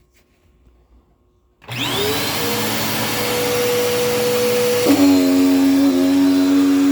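Dirt Devil Power Max vacuum cleaner switched on a moment in, its motor spinning up with a rising whine and then running steadily. About five seconds in, the pitch drops to a lower, stronger hum.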